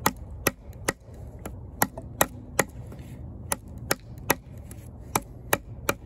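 Kizer Justice II fixed-blade knife, a D2 steel drop-point blade, chopping into a knotty piece of wood. It gives a quick series of sharp whacks, about two or three a second, with a short pause about halfway.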